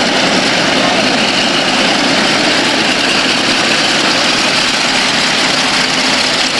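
Piston engine of a World War II-era propeller airplane running steadily at taxi power as the plane taxis.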